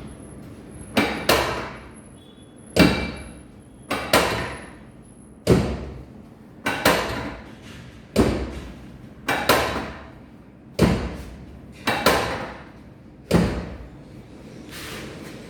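A rhythmic series of about ten sharp thuds during a chiropractic treatment, roughly one every second and a half. Several come as quick doubles, and each dies away in about half a second.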